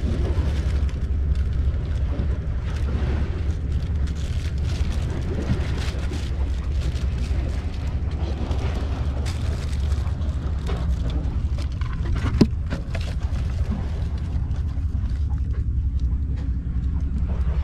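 A steady low rumble throughout, with scattered rustles and light clicks, likely a small kitten scrambling over plastic sheeting and sticks in a rubbish pile. One sharp click comes about twelve seconds in.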